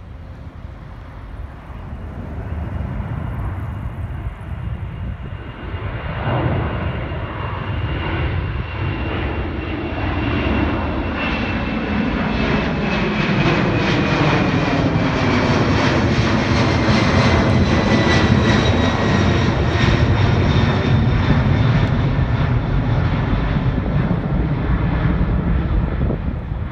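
Boeing 767-400ER's two General Electric CF6-80C2 turbofans at takeoff climb power as the airliner passes overhead: a jet roar that builds to its loudest about two-thirds of the way through, with a high fan whine that slides slowly down in pitch as it goes by.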